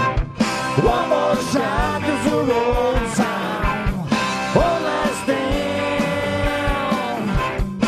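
A southern rock band playing live, with a bowed fiddle over guitars and a steady drum beat. The melody slides and bends. The sound drops out for an instant three times: just after the start, about halfway, and near the end.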